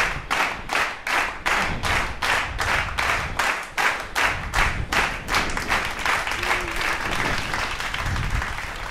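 Skis cutting through deep powder in quick turns: a rhythmic whooshing, about two swishes a second, over a low wind rumble on the mic, blurring into a steadier hiss after about six seconds.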